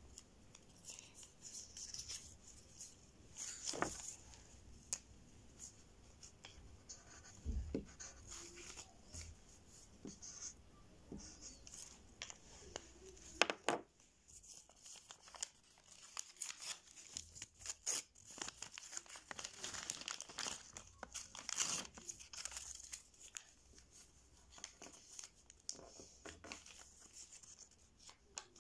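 Faint rustling and crinkling with scattered light clicks and a few soft knocks.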